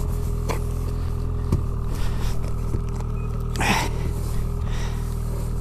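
Snowmobile engine running at a steady speed, with a brief rushing noise about three and a half seconds in.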